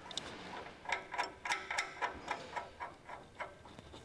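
Half-inch steel bolt and hex nut being spun on by hand against the steel blade bracket, a run of light metallic clicks about four or five a second, busiest about a second in and thinning out near the end.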